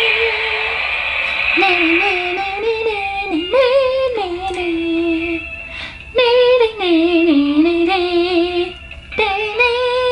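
Background music track played by the Bandai Proplica Super Sailor Uranus Transformation Lip Rod toy's music mode. A high lead melody runs in long phrases, with two short breaks between phrases.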